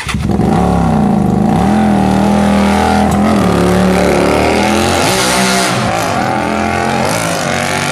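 Hyosung GT250R's V-twin with a modified, loud aftermarket exhaust, revved up and down several times, its pitch rising and falling.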